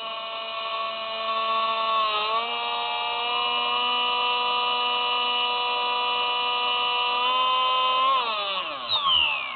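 Electric motor and propeller of a Spy Hawk RC model plane whining steadily, the pitch dipping briefly about two seconds in, then falling steeply near the end as the throttle is pulled back.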